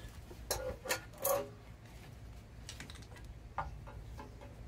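Knocks and clicks of an old alternator being worked out of a car's engine bay, metal parts shifting against each other: three louder clunks close together in the first second and a half, then a few lighter clicks.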